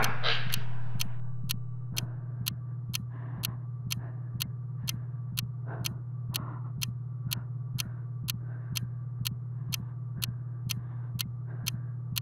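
Clock ticking steadily, about two ticks a second, over a steady low hum.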